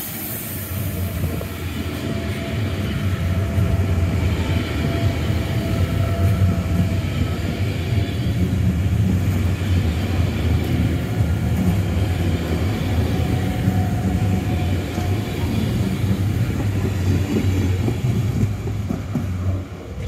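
ICE high-speed electric train rolling along the platform: a steady, loud rumble of wheels on rail and running gear with a faint whine over it. The sound falls away just before the end.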